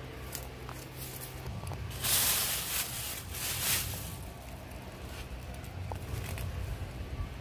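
Leaves rustling and brushing as someone moves close through the gourd vines, loudest for a second or two a couple of seconds in, over a steady low hum.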